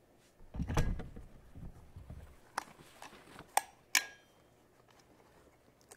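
Handling knocks of a 10-inch Euphoria mid-bass woofer being tried in a speaker ring that is too small for it: a dull, heavy thump about a second in, then three sharp clicks over the next couple of seconds.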